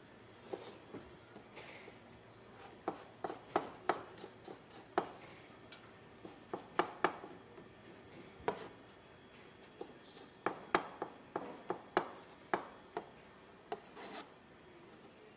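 Knife cutting ginger on a cutting board: irregular sharp knocks, some single and some in quick runs of two to four, with scraping between them.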